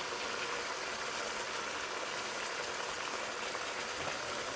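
Meat and chicken frying in a little oil in a pot, a steady sizzle.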